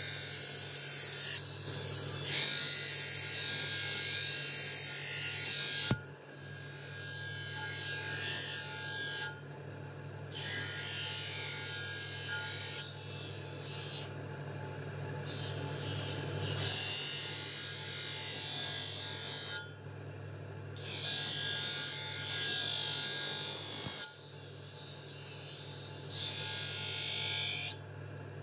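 Motor-driven grinding wheel humming steadily while a Damascus steel sword blade is pressed against it, a harsh grinding rasp in repeated passes that start and stop every few seconds.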